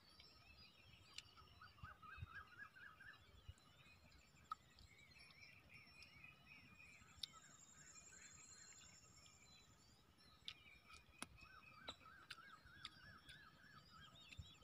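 Birds calling faintly: repeated runs of quick chirping notes, with a high thin trill about seven to nine seconds in, and a few soft clicks.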